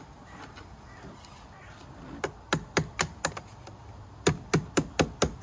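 Positive battery terminal clamp being tapped down onto the battery post to seat it: two runs of quick, sharp taps, the first starting about two seconds in and the second about four seconds in.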